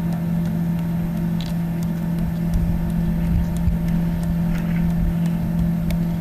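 Steady motor hum holding one pitch, over an uneven low rumble, with a few faint clicks.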